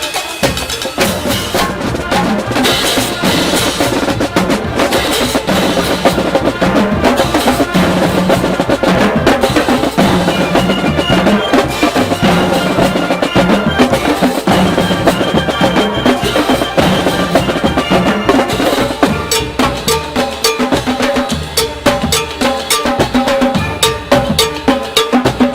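College marching band playing a pep tune: a brass melody over a drumline's snare and bass drums, the drum strokes growing sharper and more prominent near the end.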